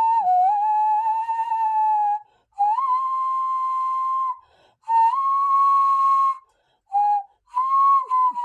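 A birdcall whistle played as a slow tune. Five long, pure whistled notes at slightly different pitches, stepping up and then down, with short breaks between them.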